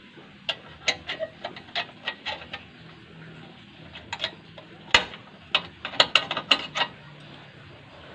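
Thin steel rebar clinking and clicking against a homemade rebar-bending jig as it is bent into a stirrup. Two runs of sharp metallic clicks, the second one denser.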